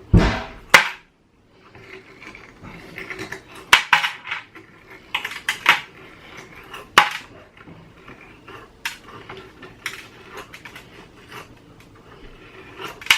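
Hard plastic parts of an Indesit washing machine's drain pump knocking and clattering as the pump is handled and debris is emptied out of it. The knocks are sharp and irregular, about a dozen, the loudest near the start.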